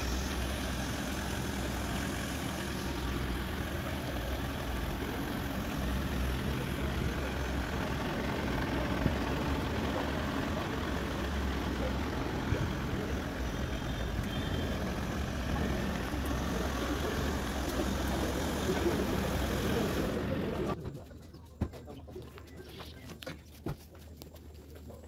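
A vehicle's engine running slowly under steady outdoor background noise with a low rumble. About 21 seconds in it gives way to a much quieter background with a few short knocks.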